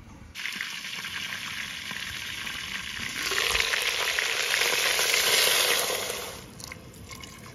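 Pork sizzling in a hot black earthenware pot. The hiss grows louder about three seconds in as water is poured onto the hot meat, then dies down about six seconds in.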